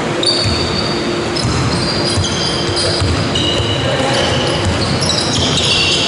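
Basketball play on a wooden hall court: sneakers squeaking in many short high squeals as players cut and stop, over dull thuds of the ball being dribbled.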